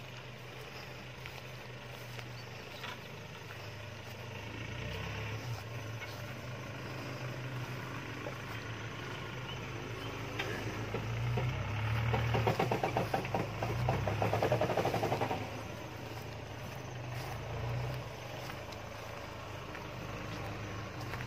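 Off-road jeep's engine running as it crawls through grass and brush, working harder and louder for a few seconds about halfway through.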